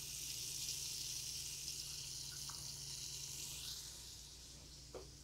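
Flour-dredged beef cubes sizzling in hot coconut oil in an Instant Pot's stainless inner pot on the saute setting. The sizzle eases off a little about four seconds in, and there is a light knock near the end.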